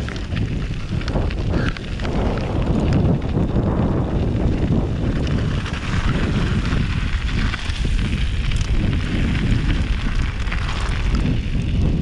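Wind buffeting the microphone of a mountain bike rider's camera during a downhill run, a dense steady rumble with tyre noise and frequent knocks and rattles from the bike over rough ground.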